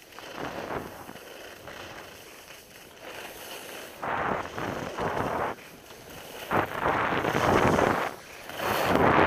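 Edges scraping and hissing across packed snow through turns, swelling in surges, with wind buffeting the camera microphone.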